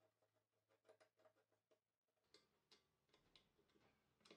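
Near silence, with faint irregular ticks and clicks of metal parts being handled: a microscope stand's steel pillar turned into its base, then an Allen key working the screw underneath.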